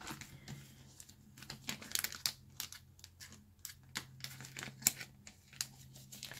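Clear plastic pocket pages of a trading-card binder crinkling and crackling as a page is turned and handled, in many sharp, irregular crackles.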